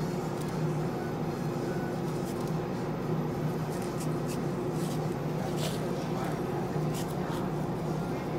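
A steady low mechanical hum, with a few faint scrapes and ticks scattered through it from a long slicing knife sliding between skin and flesh of a raw fish fillet on a wooden cutting board.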